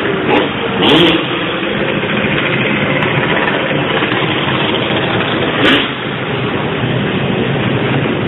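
Motorcycle engine running loudly and steadily, with two short louder bursts, about a second in and near six seconds.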